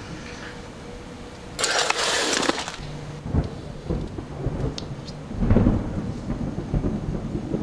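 Edited sound effects: a loud rushing whoosh about a second and a half in, then a deep low rumble over a steady low hum that swells about halfway through.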